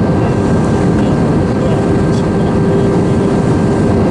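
Airbus A321 cabin noise on approach with flaps extended: a steady, loud rush of airflow and engine noise, with an even hum running underneath.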